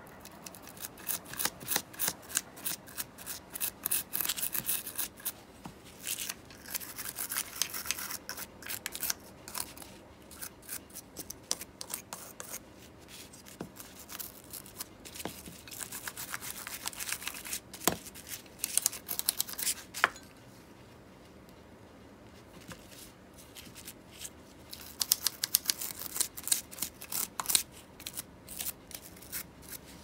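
Ambassadeur 1500C baitcasting reel being handled, with irregular runs of rapid small metallic clicks and rattles and a short quiet pause past the middle.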